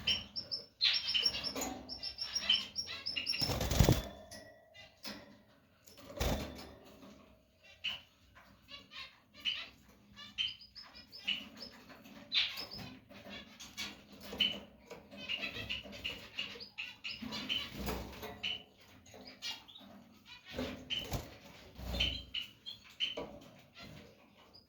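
Female canary chirping in short, high call notes, now in quick runs, now singly. A few brief, louder rustling bursts stand out, the loudest about four seconds in.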